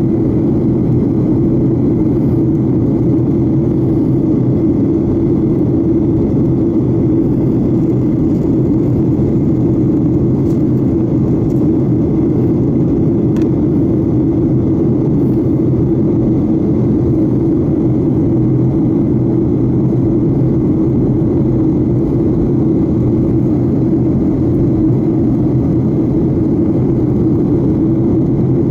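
Steady engine and airflow noise of a jet airliner in flight, heard inside the cabin: an even, unchanging drone.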